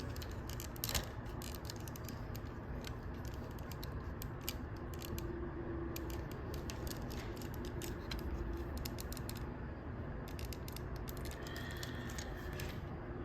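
Plastic Transformers figure being handled and turned during transformation, its plastic parts clicking and ticking in quick runs as a section is rotated.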